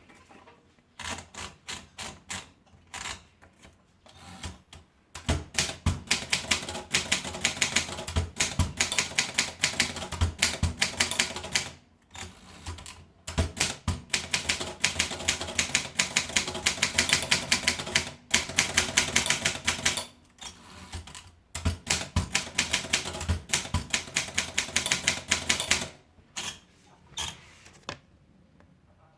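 Triumph Norm 6 manual typewriter being typed on: a few separate key strikes at first, then long runs of quick keystrokes, each a sharp clack, broken by short pauses.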